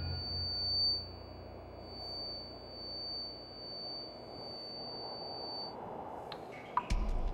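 A single steady high-pitched ringing tone, clean like a sine wave, over a faint low hum. The tone stops about six seconds in, followed by a few sharp clicks and a low thump near the end.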